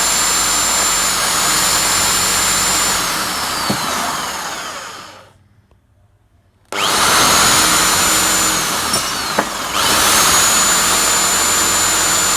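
Electric drill with a 16 mm flat spade bit boring into wood, its motor giving a steady high whine. About four seconds in the trigger is let go and the motor winds down to a stop. After about a second and a half of quiet it starts again sharply, slows briefly around nine and a half seconds, then runs on.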